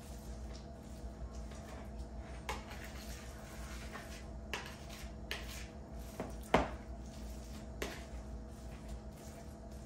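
Hands mixing a moist shredded chicken and bread mixture in a plastic bowl: soft squishing with scattered light knocks and taps of the bowl, the sharpest knock about six and a half seconds in.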